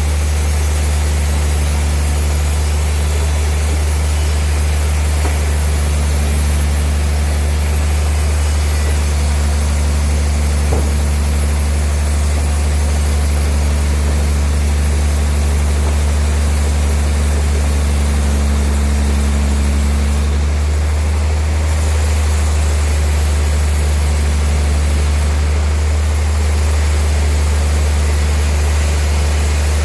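Sawmill machinery running steadily: a loud, constant deep hum with an even hiss over it. A higher hum drops away about two-thirds of the way through.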